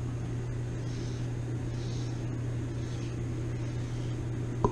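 Steady low hum of room noise, with faint soft strokes of a deshedding comb drawn through a dog's coat, and a brief click near the end.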